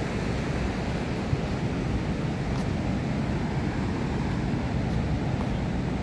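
Steady wind rumbling on the microphone over the wash of ocean surf.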